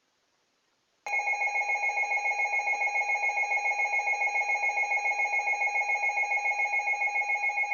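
Emergency Alert System attention signal: a steady two-tone alert tone that starts suddenly about a second in, holds at one pitch for about seven seconds, and cuts off near the end.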